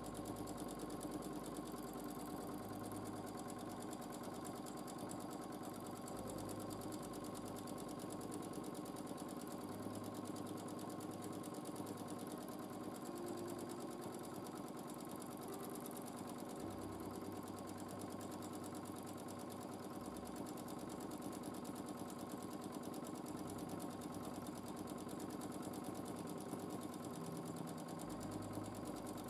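Domestic sewing machine running steadily at speed while free-motion quilting, the needle stitching in a fast, even rhythm.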